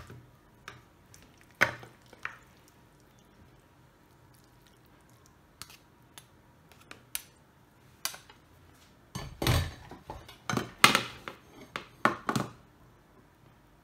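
A plastic slotted spatula knocking and scraping against a ceramic baking dish while cutting and lifting portions of baked vegetable gratin. A few scattered knocks, then a quick run of louder knocks and scrapes about nine to twelve seconds in.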